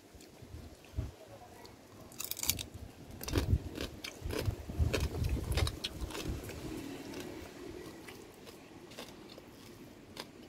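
Close-up chewing and crunching of som tam, shredded green papaya salad, with scattered sharp mouth clicks, busiest from about two to six seconds in.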